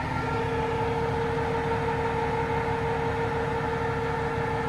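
Takeuchi mini excavator's diesel engine idling, its even low pulsing overlaid by a steady whine from the hydraulic brush cutter attachment spinning under the held-on auxiliary hydraulics. The engine is at idle, not full RPM.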